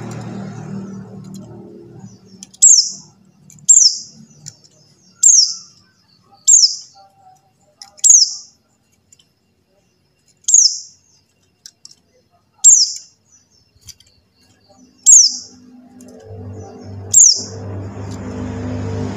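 White-eye (pleci buxtoni) giving repeated single high call notes, each a short downward sweep, about nine of them at uneven intervals of one to two and a half seconds. A low droning background fades out in the first two seconds and comes back near the end.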